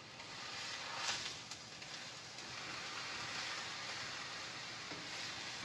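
Chicken breasts sizzling in a hot skillet as they are flipped and seared on high heat, the sizzle flaring up about a second in and then holding steady.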